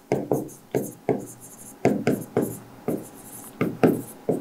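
Chalk writing on a chalkboard: about a dozen quick taps and short scrapes of the chalk stick as letters are written out.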